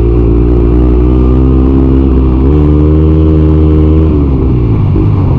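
Bajaj Pulsar NS200 single-cylinder engine under way, heard from the rider's seat through its aftermarket Akrapovic exhaust, with wind rush. The engine note steps up in pitch about halfway through and falls away again near the end as the throttle eases.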